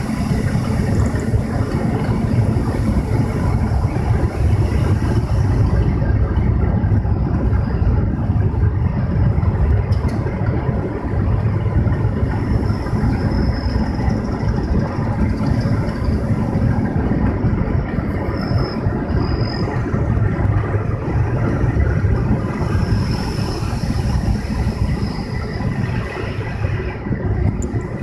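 Car driving along a road: steady engine and tyre rumble.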